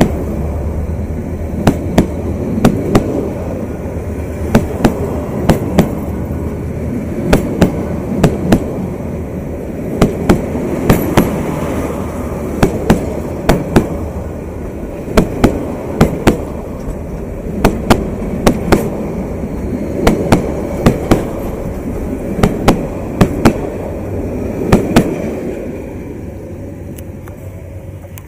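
Passenger coaches of a departing express train rolling past close by: steel wheels clacking over rail joints in sharp pairs and small groups about once a second over a steady low rumble. The sound fades over the last couple of seconds as the train draws away.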